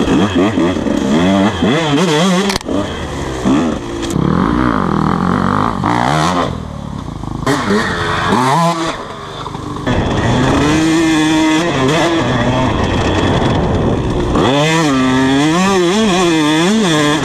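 KTM 150SX two-stroke dirt bike engine revving up and down again and again as the throttle is worked on and off, with fast, choppy revs near the end. About six seconds in, a quieter stretch of a few seconds where the engine eases off.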